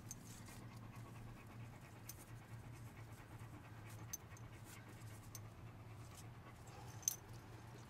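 Great Dane panting, with a sharp click about seven seconds in.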